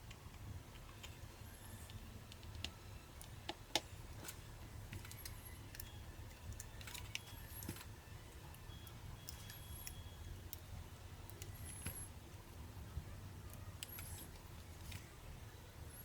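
Small scattered clicks and taps of tools and small parts while a Canon T6/1300D camera body is taken apart, the sharpest click a little under four seconds in, over a low steady hum.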